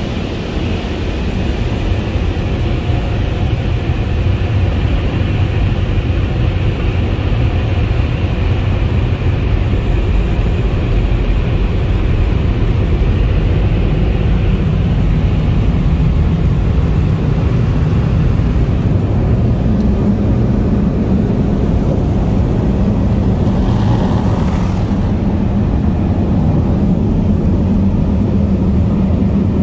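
Car wash tunnel dryer blowers blowing air over the car, heard from inside the cabin: a loud, steady rush of air with a low hum that grows stronger about halfway through.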